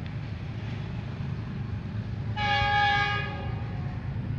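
Pakistan Railways GEU-20 diesel-electric locomotive sounding its multi-tone horn in one blast about a second long, a little past halfway, over the steady low rumble of the approaching train.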